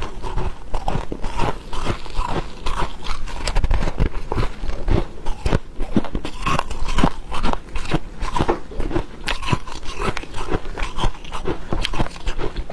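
Close-miked biting and chewing of dry freezer frost: dense, irregular crunching as lumps of packed frost are crushed between the teeth.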